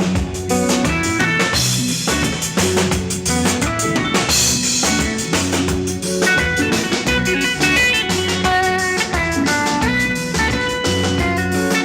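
A band playing Tuareg desert-blues: guitar picking quick melodic lines over drum kit and bass, steady and full throughout.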